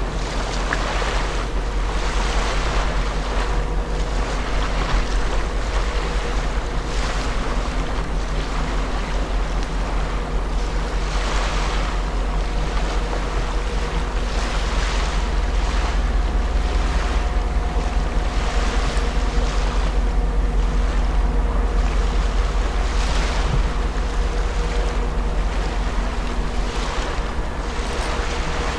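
Steady low hum of the cruise ship MSC Poesia coming in slowly, with faint held tones from its machinery. Over it, wind rushes on the microphone and water washes in swells every second or two.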